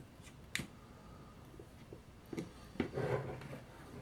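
Hands handling small objects on a work surface: a few light clicks and taps, most of them bunched together in the second half.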